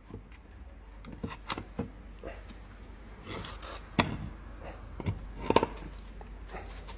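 Scattered light clicks and knocks from a Ford 6R80 automatic transmission's valve body and bolts being handled as the loosened valve body is worked free, with a sharper knock about four seconds in and a short clatter about five and a half seconds in.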